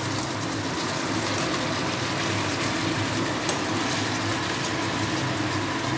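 Chicken pieces sizzling in a pan of chili-chicken sauce: a steady hiss over a low, even hum.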